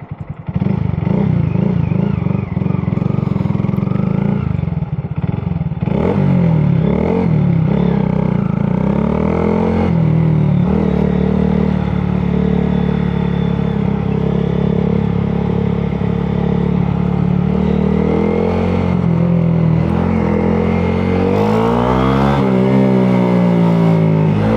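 2022 Honda Grom's single-cylinder four-stroke engine pulling away and accelerating, coming in loud about half a second in; its pitch climbs and drops several times as the revs rise and the gears change, with the widest swings near the end.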